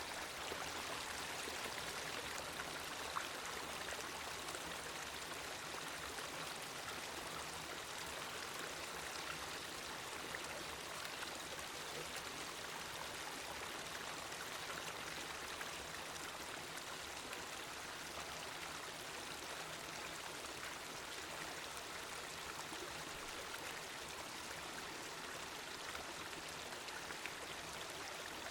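The Katsura River flowing, a steady even rush of water with no breaks.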